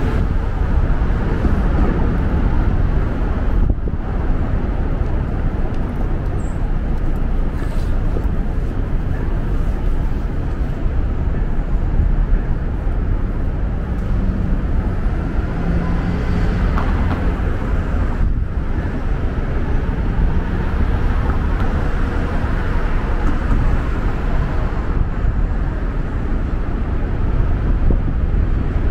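Steady downtown street traffic: cars and other vehicles running past, a continuous low rumble with no distinct event standing out.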